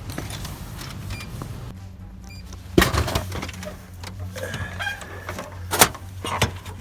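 Drink vending machine dispensing a can: small mechanical clicks over a steady low hum, and one loud thud about three seconds in as the can drops into the tray, followed by a couple of sharp knocks near the end.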